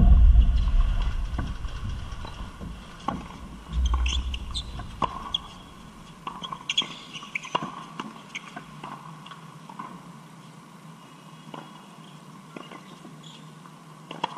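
Tennis rally on a hard court: sharp pops of the racket striking the ball and the ball bouncing, spaced a second or so apart, with sneakers squeaking on the court. Wind rumbles on the microphone at the start and again about four seconds in, the loudest sound here.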